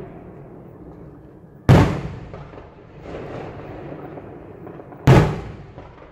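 Fireworks: two loud shell bursts about three and a half seconds apart, each a sharp bang with a short fading echo, over the steady background noise of the ongoing display.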